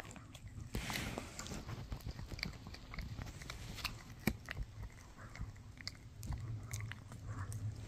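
A Shih Tzu chewing a bully stick up close: irregular gnawing and small crunching clicks of teeth on the chew, with one sharper click about four seconds in.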